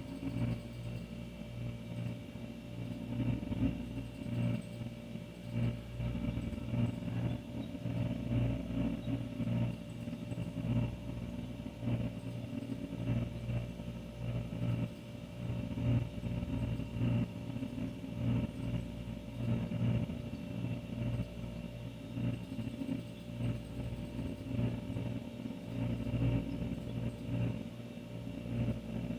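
Older refrigerator running with a steady low hum, over an uneven low rumble.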